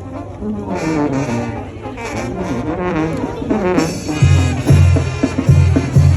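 Mexican brass band (banda) playing, with trombones and trumpets carrying the melody; about four seconds in, a heavy low bass comes in, pulsing in a steady beat.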